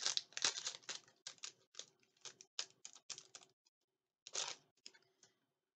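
Plastic and paper packaging crinkling and crackling in the hands as an enamel pin is unwrapped: a run of quick irregular crackles and clicks, thinning out, with one longer rustle about four and a half seconds in before it stops.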